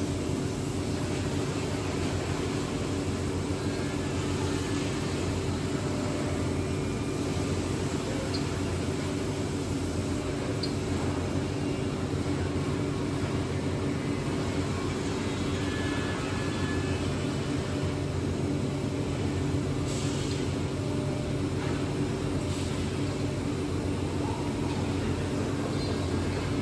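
A heavy-duty 5-axis CNC woodworking machine running with a steady, even mechanical hum. A few faint ticks come through in the second half.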